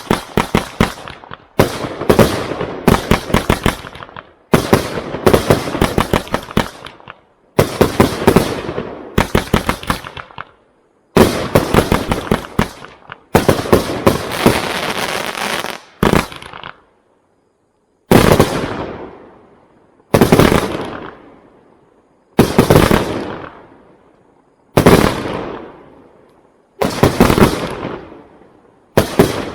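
The Rebel, a 104-shot compound firework cake with 25 mm tubes, firing. For about the first 16 seconds it sends off rapid volleys of shots. After a short pause, it fires single loud bursts about every two seconds, each fading away.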